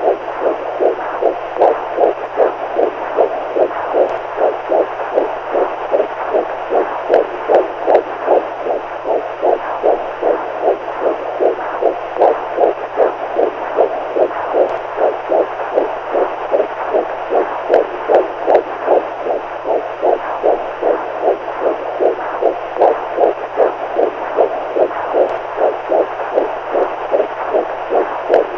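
Heartbeat sound for a baby sleep aid: a steady, even pulse of beats, a little more than one a second, repeating without change, over a faint steady hum.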